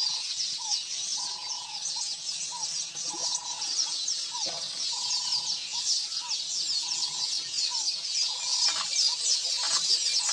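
Birds calling: a dense, high chattering chorus with short calls repeating about once or twice a second beneath it.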